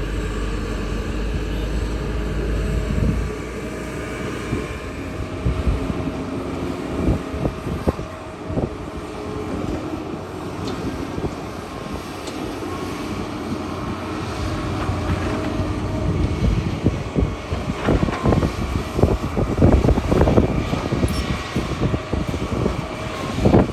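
Kobelco excavator's diesel engine running steadily while it works, with a heavy low rumble for the first few seconds. A run of knocks and clatter comes about three-quarters of the way through, and another near the end.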